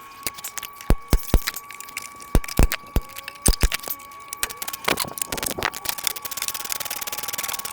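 Metal hand tools clinking and knocking on a car body-panel fastener as it is worked loose, then a fast run of rapid, even clicks through the last few seconds. A faint steady whine runs underneath.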